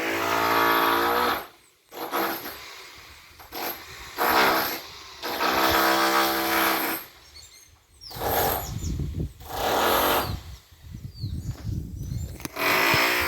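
A motor engine running in repeated bursts of a second or two each, the pitch holding steady through each burst, with a low rumble in between.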